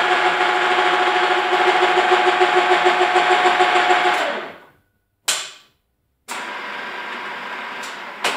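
Radial drill's gear drive running under power with a steady whine and a rapid regular pulse, winding down and stopping about four seconds in. After a short silent gap, a quieter steady machine hum follows, with a sharp knock near the end.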